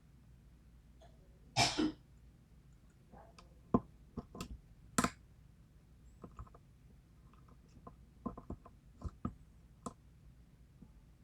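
Scattered small clicks and ticks of a lock pick and tension wrench working the pin stacks of a Schlage KIK cylinder. A short two-part throat clearing comes about one and a half seconds in, and another short, sharp noise about five seconds in.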